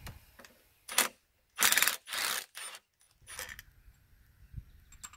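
Cordless impact wrench hammering in several short bursts on an oil-pump bolt in a John Deere 6466 engine block. The longest and loudest burst comes about two seconds in.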